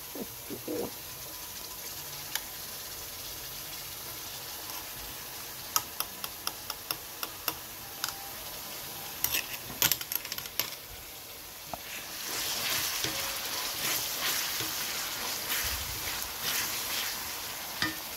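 Chopped onion and ginger-garlic paste sizzling steadily in hot oil in a pan. A run of light clicks from a spoon against a glass jar comes between about six and ten seconds in as the paste is scooped out. From about twelve seconds the frying grows louder as the mixture is stirred with a wooden spoon.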